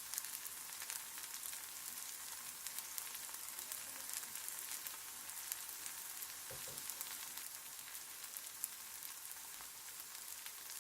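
Food sizzling as it fries in hot oil in a pan: a steady hiss with many fine crackles.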